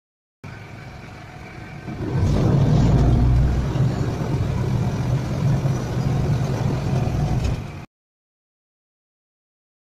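Engine of a small passenger boat running, growing much louder about two seconds in as the boat gets under way. The sound cuts off abruptly near the end.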